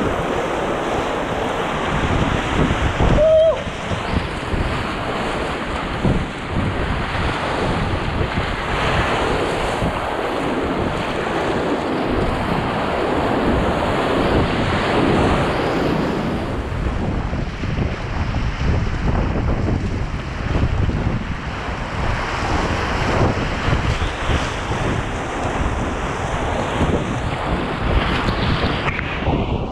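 Whitewater rapids rushing and splashing around an inflatable packraft close to the microphone, with wind noise on the microphone.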